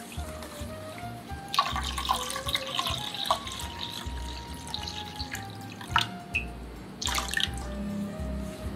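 Water pouring and splashing into a pot, over light background music.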